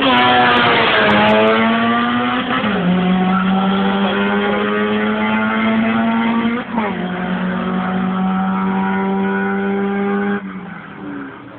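Straight-piped Honda Civic EK's four-cylinder engine at full throttle as it passes close by, its pitch falling. It then pulls away hard with two upshifts, each a sudden drop in pitch, about three and seven seconds in. The sound drops away sharply near the end.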